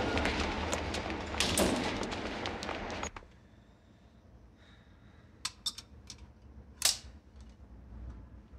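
Loud rushing noise that surges again about a second and a half in, then cuts off sharply about three seconds in. Near quiet follows, broken by a few sharp clicks and taps of small objects being handled.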